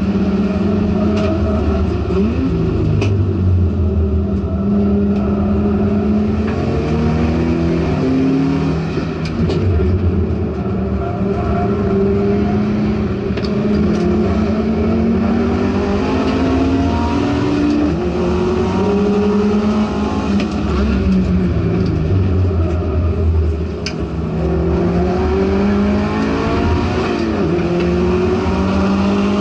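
Subaru WRX STI race car's turbocharged flat-four engine, heard from inside the cabin at racing speed. It climbs in pitch again and again as it accelerates, each climb broken off by a gear change. The revs drop off while braking for corners.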